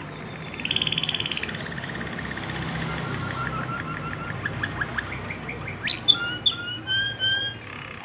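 Waterslager (Malinois) song canary singing: a fast rolling trill, then a held note and a run of short repeated notes and quick rising chirps. Near the end come its loudest phrases, a few clear whistled glides.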